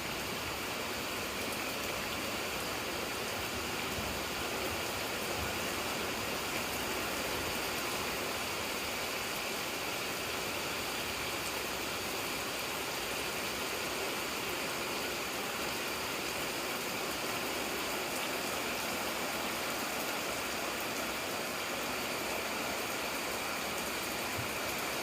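Steady rain falling, an even hiss with no distinct drops or rumbles standing out.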